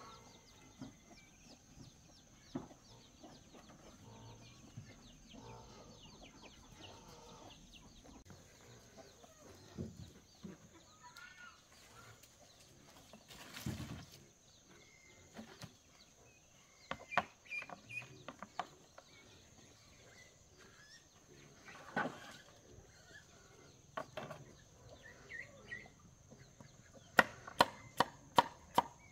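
Chickens clucking faintly among scattered light knocks and a brief rustle. Near the end comes a quick, even run of loud, sharp chopping strikes, about three a second.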